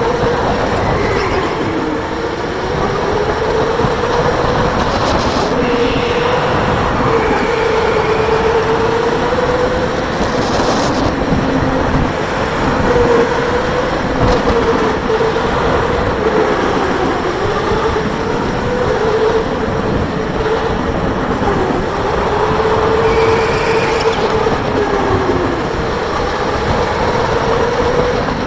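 Electric go-kart running flat out on a concrete track. A steady motor whine dips in pitch and climbs again every few seconds through the corners, over a constant rumble and hiss of tyres and wind.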